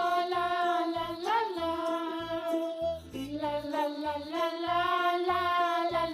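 Background children's music: a held melody line over a steady low beat.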